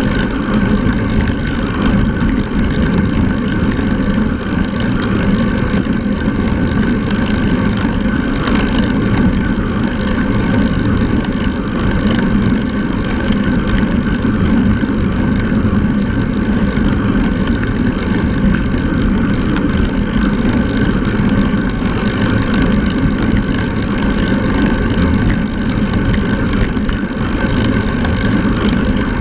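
Steady rumble of wind buffeting a handlebar-mounted action camera's microphone on a moving road bike, mixed with the hum of tyres rolling on asphalt.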